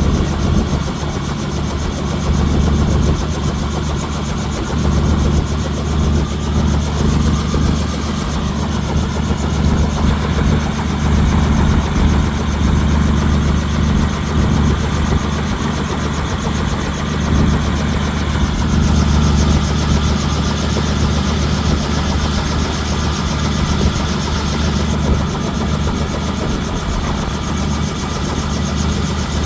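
Helicopter engine and rotor running steadily on the ground at warm-up, with a fast, even rotor pulse; a higher tone bends up and back down around 7 to 10 seconds in.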